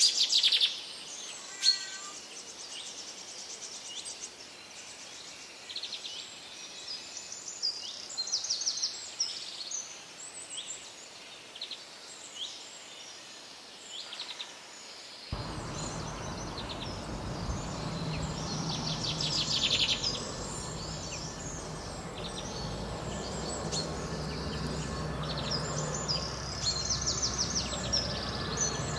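Small songbirds chirping and trilling with short, quick repeated notes. About halfway through, a steady low rumble starts abruptly and runs under the birdsong.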